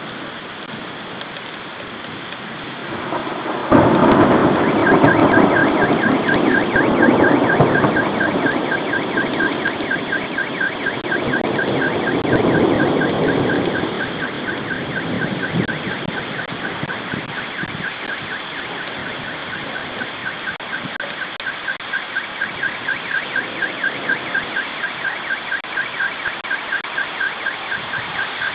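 Thunderstorm with rain hissing steadily. A loud thunderclap breaks in about four seconds in and rumbles on for about ten seconds, with a second swell near the middle. Right after the clap a car alarm starts, beeping in a fast repeating pattern until the end.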